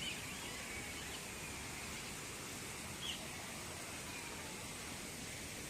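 A few brief, faint bird chirps, one at the start and one about three seconds in, over a steady background hiss.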